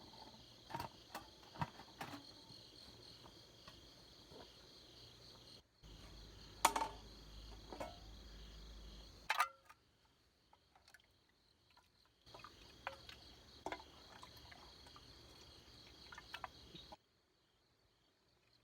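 Insects chirping steadily in a high, even chorus, with scattered sharp clicks and knocks over it. The sound cuts off abruptly and restarts twice, and stops about 17 seconds in.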